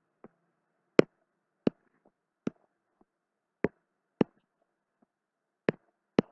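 Computer mouse clicking while drawing with an on-screen pen tool: about seven sharp single clicks at uneven intervals, near silence between them.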